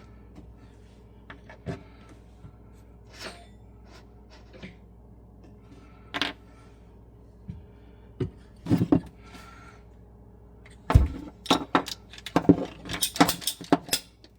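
Scattered knocks, clicks and clatter of hand tools and PEX pipe fittings being handled during plumbing work, sparse at first and then busier and louder over the last few seconds.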